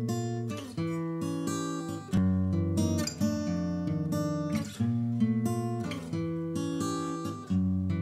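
Background music: an acoustic guitar playing strummed chords, a new chord struck roughly every second, with no singing.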